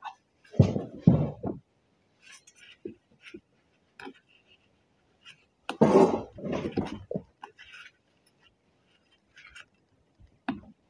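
Metal clinks and knocks from a front axle U-joint's bearing cups and yoke being handled and fitted by gloved hands, in short separate bursts, the loudest about halfway through.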